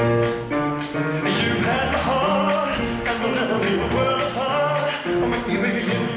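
Recorded music in an instrumental passage without lyrics: a melody line gliding over bass notes, with a steady beat.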